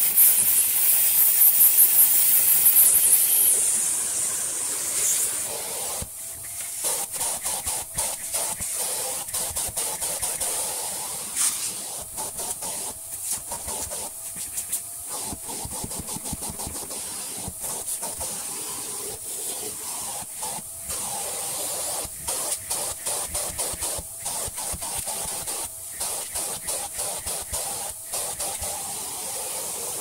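Vacuum cleaner running, its crevice tool sucking dust out of an old vacuum's filter and bag compartment, with the nozzle rattling and scraping against the plastic and the filter pad. It is loudest, with a high whistle, for the first few seconds, and the suction note dips briefly several times.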